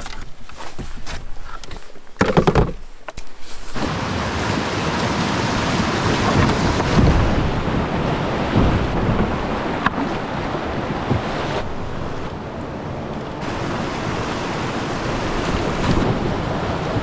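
Rushing whitewater of a flooded creek rapid, a loud, steady rush that starts suddenly about four seconds in. Before that come a few sharp knocks.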